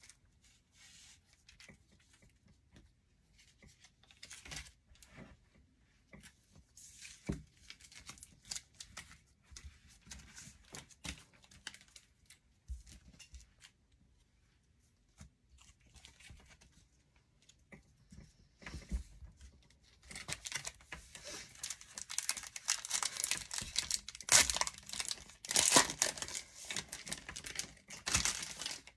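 Trading cards handled and set down on a table, with light clicks and rustles. About twenty seconds in, a hockey card pack wrapper is torn open and crinkled, much louder than the card handling.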